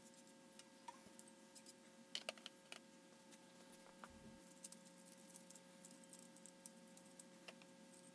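Near silence with a steady faint hum and a few light scattered clicks, the loudest a quick cluster of clicks about two seconds in, like small parts or a tool being handled.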